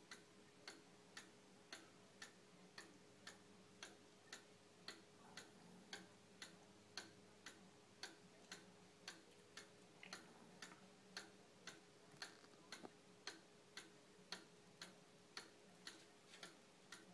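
100-year-old Black Forest cuckoo clock ticking faintly and steadily, about two ticks a second, as its pendulum movement runs.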